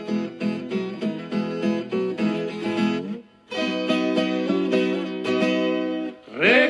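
Instrumental music of plucked guitars playing a melody, breaking off briefly about three seconds in and then starting again as a new passage.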